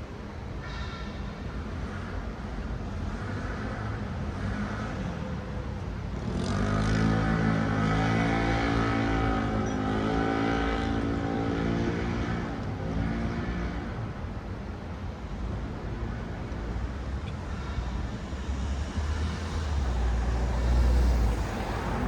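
City road traffic with cars passing. From about six seconds in, a vehicle passes close with a clear engine hum that fades by about fourteen seconds. A deep rumble from another vehicle swells near the end.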